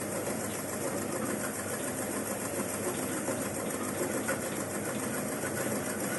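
Homemade oil palm frond midrib stripping machine running steadily, its rotating stripper taking the leaflets off the palm-leaf ribs.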